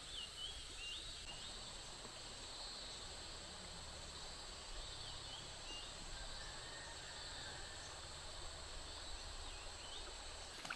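Tropical riverside ambience: a steady high insect drone over an even hiss from the shallow flowing river, with a bird giving a short whistled call three times, at the start, in the middle and near the end.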